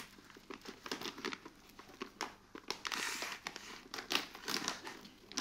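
A kraft-paper stand-up pouch of white chocolate chips being opened at the top by hand, crinkling with many irregular crackles, busiest about halfway through.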